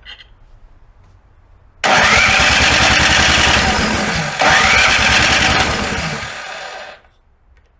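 Snow blower engine being cranked to start, in two attempts of about two and a half seconds each, both beginning with a rising whine over a fast even chugging; the second fades and stops without the engine staying running. It is a hard start after summer storage, which the owner puts down to a carburetor clogged by ethanol gasoline.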